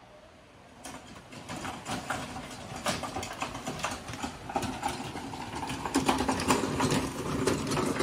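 Hand cart with a loaded blue plastic crate being pushed over gravel: wheels crunching and the crate rattling in a continuous clatter. It builds from about a second in and gets louder near six seconds.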